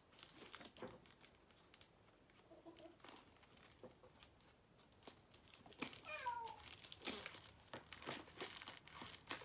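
Scissors snipping through a plastic poly mailer bag, faint at first, then plastic crinkling and rustling busily from about six seconds in as the bag is cut and pulled. A short high call that falls in pitch sounds briefly at about the same moment.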